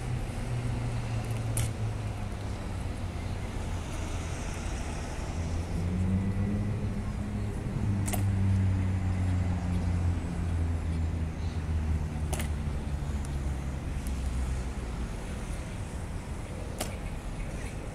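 Steady road traffic with a vehicle engine passing, loudest in the middle. Four sharp clacks, several seconds apart, are the Evzones guards' hobnailed tsarouchia clogs striking the stone pavement in their slow ceremonial steps.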